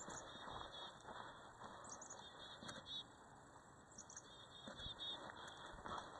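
Quiet outdoor ambience: faint high chirps come in small groups of about three, a few times, over a soft background hiss, with a couple of faint soft steps.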